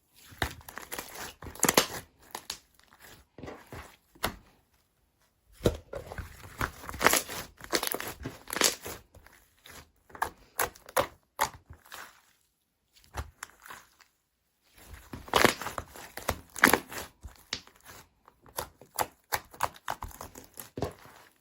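Hands squishing and stretching slime, making crackling, crinkling pops in irregular bursts with short pauses between them.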